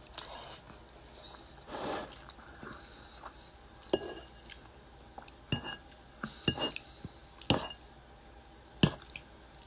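Fork and dishes clinking during a meal of eggs: about half a dozen sharp, separate clinks spread through, a couple of them ringing briefly, with softer chewing noises between.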